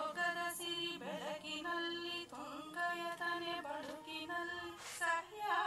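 A recorded prayer song, the university song, played back: one voice singing long held notes that glide and bend in a chant-like devotional style.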